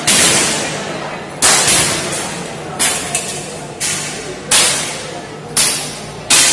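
Air rifles being fired one after another by several shooters: about seven sharp shots, irregularly spaced less than a second to about a second and a half apart, each followed by a short echoing decay.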